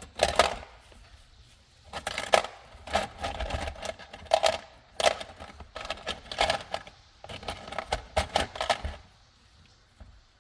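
Small metal parts clinking and clattering in irregular bursts: rummaging through a box of metal hose clamps.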